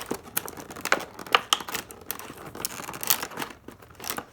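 Packaging crinkling and rustling as tape is peeled off a boxed model locomotive, with irregular small clicks and scrapes.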